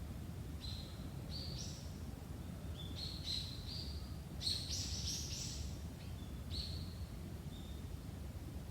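Small birds chirping in short clusters of high notes, busiest around the middle, over a steady low background rumble.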